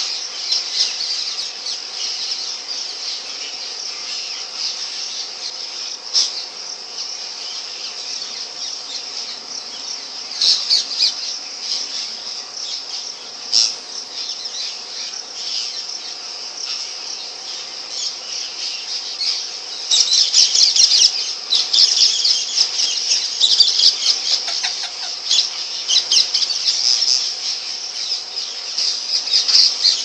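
Indian ringneck parakeet chattering steadily in high notes, with a few brief sharp calls and a louder, busier run of calls from about twenty seconds in.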